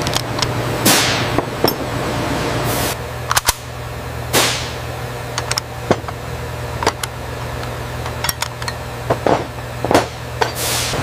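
Irregular sharp metallic clicks and clanks of rifle parts and hand tools being worked during AR-15 assembly, over a steady low hum, with a few falling whooshes about a second in and again around four seconds in.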